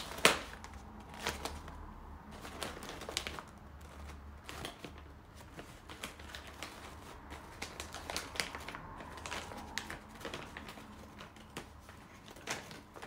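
Stiff sego gele fabric rustling and crackling as it is pleated and tucked into a headwrap by hand, in irregular sharp crinkles, the loudest just after the start and another near the end.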